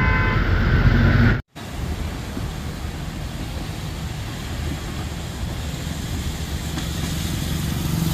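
Steady hiss of rain and tyres on a wet road, with traffic; a car horn sounds briefly at the very start. A motorcycle engine grows louder near the end as it approaches.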